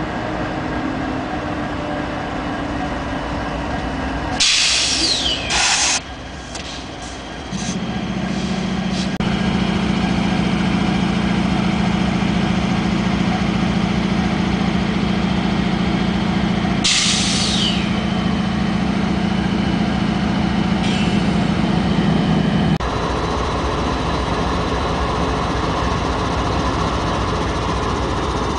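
Several Union Pacific diesel-electric locomotives passing with their engines running under load, a steady drone from the units going by. Two short, loud hisses cut in, about four seconds in and again past the middle.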